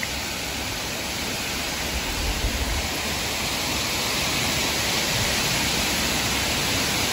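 Heavy rain pouring down steadily, an even rushing hiss, with a few low bumps about two seconds in.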